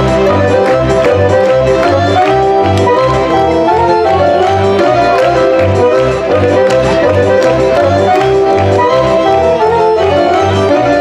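Serbian folk dance music from Šumadija for a kolo: a melody played over a bass that alternates between two notes on a steady beat.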